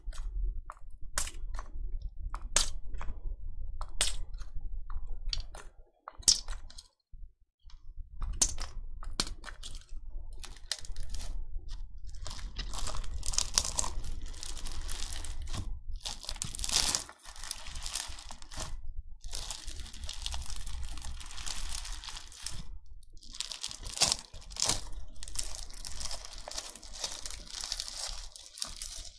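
Crunchy bingsu slime being squeezed and worked by hand, its beads crackling and popping. Separate sharp pops at first, with a brief pause about six seconds in, then dense, continuous crackling from about twelve seconds on.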